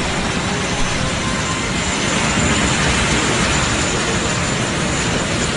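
Steady rushing noise of jet aircraft engines with a faint high whine, swelling slightly a couple of seconds in.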